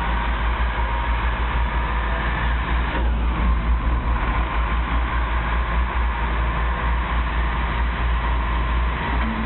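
Diesel engines of heavy construction machinery running steadily, with a deep, even drone.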